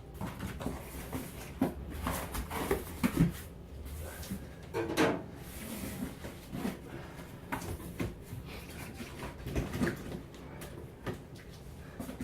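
A large package being opened and handled: irregular scraping, rustling and knocks of the packaging.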